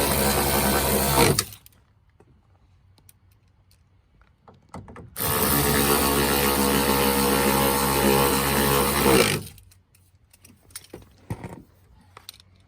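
Power driver running down the 10 mm bolts that hold a side mirror to a car door, in two steady runs. The first stops about a second in; the second lasts about four seconds in the middle. Small clicks and handling noises follow near the end.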